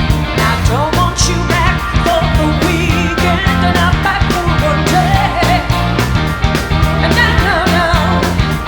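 Rock song with singing over a steady drum beat.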